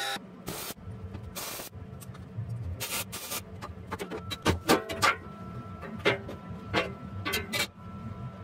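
Background music with a steady low bass line. Over it come irregular scrapes and clanks of steel sheet panels being slid and handled.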